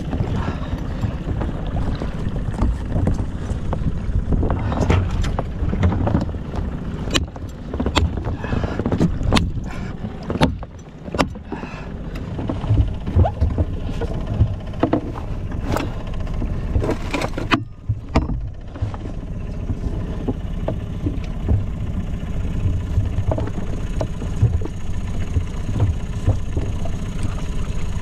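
Steady low rumble of wind and water around a small inflatable boat at sea, broken by irregular sharp knocks and clicks, most of them in the middle of the stretch.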